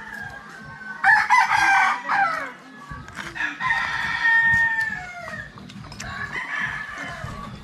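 Rooster crowing three times: a loud crow about a second in, a longer crow falling in pitch at its end a couple of seconds later, and a fainter crow near the end.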